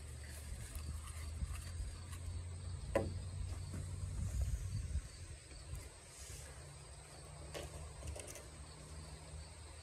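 Low steady outdoor rumble, with one sharp knock about three seconds in as a drywall sheet is handled, and a few faint ticks later.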